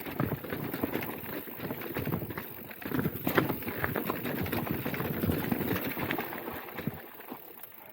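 Mountain bike riding downhill over a rough trail: tyres running over dirt and rock with fast, irregular clattering and knocking from the bike, easing off near the end.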